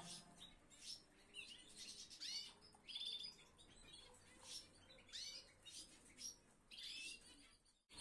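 Caged canaries chirping faintly: about a dozen short, scattered chirps, some sliding up or down in pitch, cut off abruptly just before the end.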